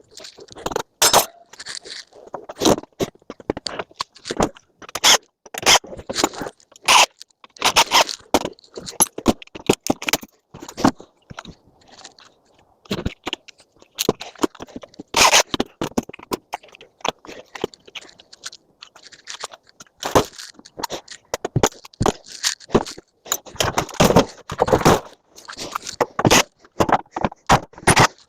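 Hand-tool work on scrap metal: irregular clicks, knocks, scrapes and crunches as parts and wiring are pulled and cut out, with a sparser spell past the middle.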